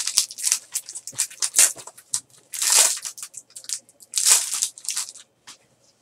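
Clear plastic wrapper of a pack of trading cards crinkling and tearing as it is pulled open by hand, in a run of crackles with louder bursts about halfway through and again just past four seconds.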